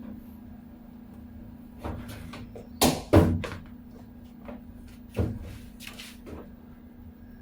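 Several sudden knocks and clunks, like a lid or panel being opened, closed or handled, the loudest two close together about three seconds in, over a steady low hum.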